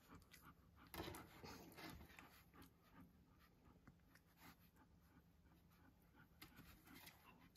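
Faint rustling and small wet clicks of Saarloos wolfdog puppies suckling and scrambling on a fleece blanket, with a louder flurry of rustling about a second in.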